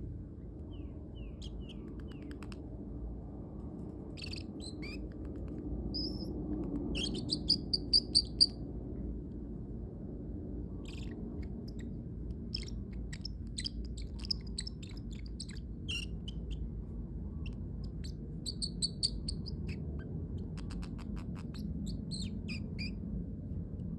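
Parrotlet making short, high chirps and squeaks in scattered bursts, with a quick run of louder chirps about seven to eight seconds in. A steady low background hum runs underneath.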